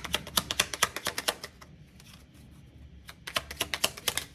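Tarot cards being shuffled by hand: rapid card-on-card clicking, about seven clicks a second, in two runs with a short pause between, the second starting about three seconds in.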